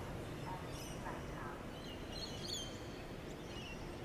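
Birds chirping, several short high chirps scattered over a few seconds, over steady background noise.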